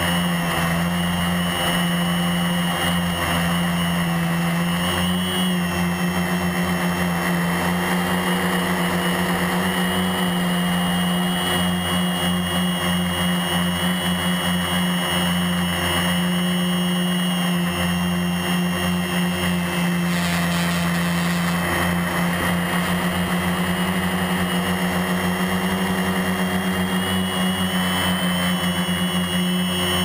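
Rotor Concept HPQ1 quadcopter's electric motors and propellers in steady flight, heard close up from the craft's own onboard camera: a continuous hum with several high whining tones above it.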